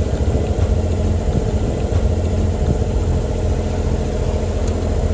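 A boat's engine running steadily under way: an even hum over a rough low rumble.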